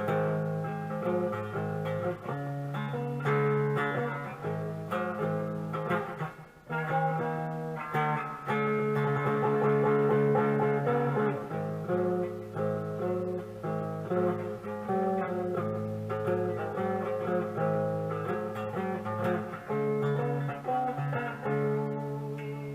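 Electric guitar, a modded Monoprice Mini Cali with a '65 Fender reissue pickup, played through an amp on a lightly overdriven 'pop rock' setting: a run of chords and single notes with a mellow tone, and a brief break about six seconds in.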